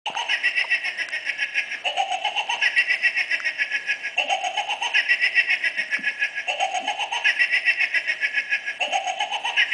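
Battery-operated laughing toy giggling: an electronic laugh in rapid, even pulses, the same phrase looping about every two seconds.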